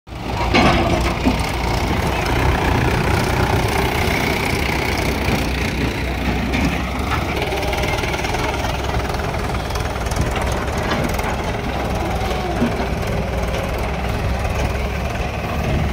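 Diesel tractor engines idling steadily, among them a Mahindra 415 DI XP Plus, with a tracked excavator's engine running as it works, and a few brief knocks.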